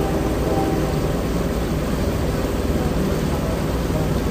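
Boat under way: a steady low engine rumble with a constant noisy hiss over it.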